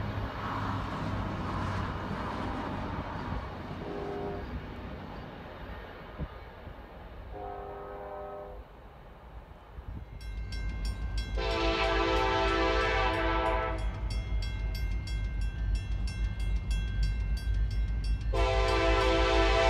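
Diesel locomotive air horns. Early on there are faint short blasts from a distant train. About halfway through comes a steady low rumble from an approaching BNSF diesel, with a loud multi-note horn chord held for about two and a half seconds, and a second long blast starting near the end.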